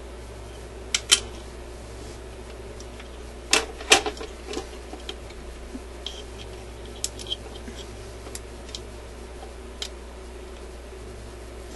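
Small parts of a suitcase record player's tone arm and cartridge clip clicking and tapping as they are handled and fitted: two sharp clicks about a second in, a louder cluster of clicks around four seconds, then lighter scattered ticks.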